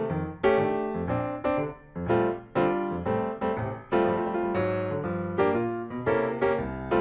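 Background piano music, a melody of notes struck at a steady pace, each fading after it is played.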